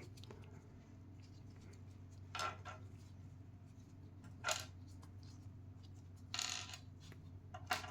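Snap-fit plastic miniature parts being pressed together and handled, giving four short sharp plastic clicks and pops spaced about two seconds apart.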